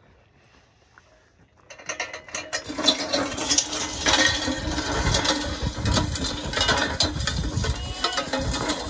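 Drag sled pulled by a strap over sandy, gravelly dirt, scraping and rattling. It starts suddenly about two seconds in and then keeps going as a dense run of scrapes and clicks.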